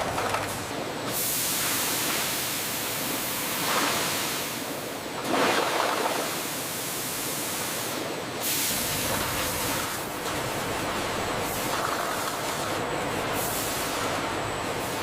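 Steady hissing noise, like machinery or spray, that changes abruptly in character every few seconds.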